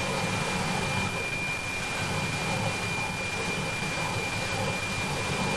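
NOAA 18 weather satellite APT signal received on a software-defined radio in narrow FM: a steady high tone buried in hiss. The satellite is only just above the horizon, so the signal is still noisy and not yet at full quieting.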